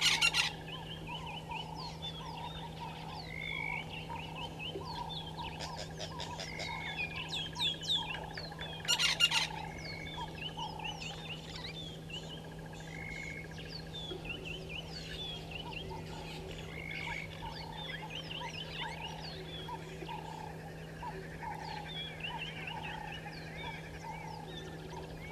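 Outdoor bushveld chorus of many overlapping wild bird calls, chirps and whistles, with a steady low hum underneath. Two short, loud bursts stand out, one at the start and one about nine seconds in.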